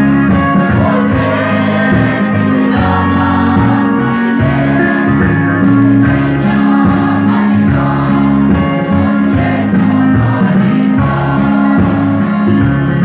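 Mixed choir of young men and women singing a gospel song, accompanied by instruments with held bass notes.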